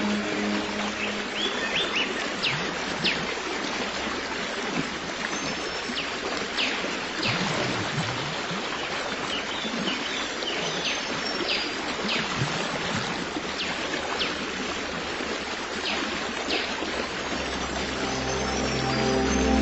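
Stream water running steadily, with small birds chirping in short, quick calls throughout. Soft background music fades back in near the end.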